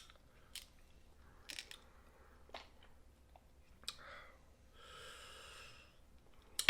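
Close-up eating sounds of snow crab with butter sauce: faint chewing and biting with scattered sharp clicks. A longer, hissy mouth sound about five seconds in lasts just over a second.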